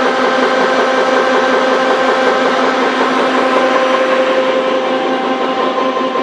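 Corrugated box production machine with an AC servo cutter running: a loud, steady machine drone, with a constant hum over dense mechanical noise.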